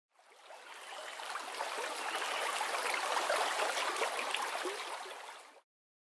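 Stream water flowing and gurgling. It fades in over the first couple of seconds and cuts off abruptly just before the end.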